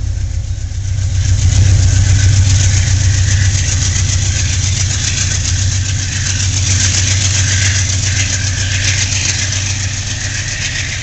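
GE P40DC diesel locomotive No. 840 working hard as it pulls away, its V16 prime mover giving a steady low drone with hiss above it and trailing heavy exhaust smoke under load. The sound is loudest about two seconds in and then slowly fades as the locomotive draws away.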